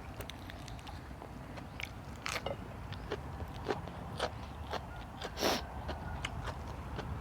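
A person eating close to the microphone: irregular crunchy bites and chewing clicks, with one louder, longer crunch about five and a half seconds in.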